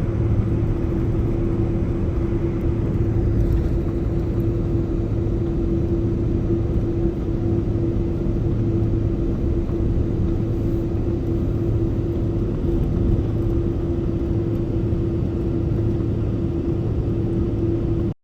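Airliner cabin noise from a window seat: the steady rumble of the jet engines with a constant droning hum over it, which cuts off suddenly at the end.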